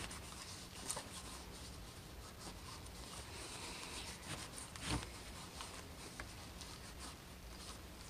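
Cloth rag rubbing metal polish over an aluminum cylinder head by hand: a faint, steady scratchy scrubbing, with a couple of soft knocks about one second and five seconds in.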